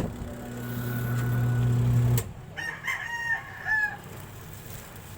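A twin-tub washing machine's wash motor hums steadily, then cuts off abruptly about two seconds in. A rooster then crows once.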